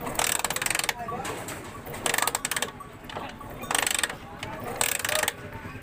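Test wire on the starting coil's red lead sparking against the engine body in four short crackling bursts, about a second to a second and a half apart: the starting coil is producing current.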